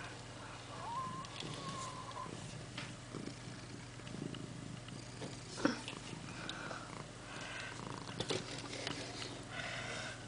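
Domestic cat purring steadily, with a few scattered sharp clicks and taps.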